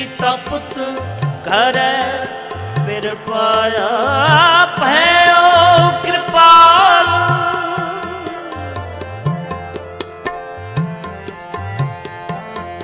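Sikh kirtan: tabla keeps a steady beat under harmonium while a voice sings a drawn-out, wavering melodic line. The singing swells in the middle and thins out toward the end.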